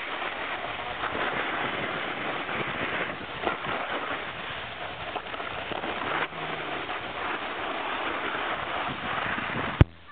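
Snowboard sliding down a groomed snow run, a steady scraping hiss of the board over the snow. One sharp click near the end, after which it briefly goes quiet.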